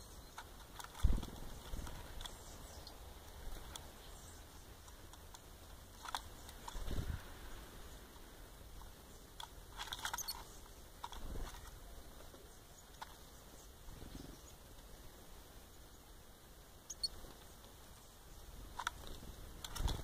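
Blue tits and a great tit at a plastic feeding bowl: soft thumps and wing flutters as birds land on and leave the rim, the loudest about a second in, with scattered pecking clicks at the oat flakes. A few faint, short high chirps come near the end.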